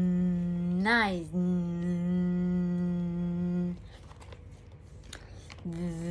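A person's voice humming one steady low note, broken briefly about a second in by the spoken word "nice". The hum stops a little before four seconds in and starts again near the end.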